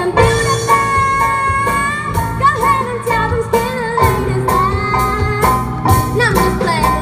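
A girl singing a held, gliding melody into a microphone over a live rock band: drum kit, bass guitar and acoustic guitar playing with a steady beat.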